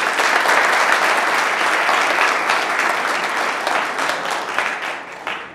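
Audience applauding, steady at first and dying away near the end.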